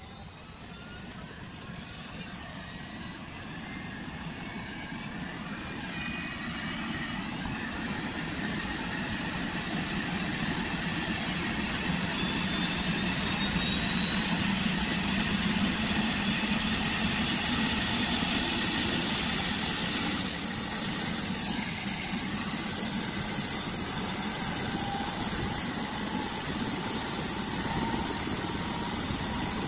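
Airbus H125 (AS350) helicopter starting up on the ground: the turbine's whine climbs steadily in pitch as the main rotor spools up from rest. The sound grows louder over the first dozen or so seconds, then holds steady at speed.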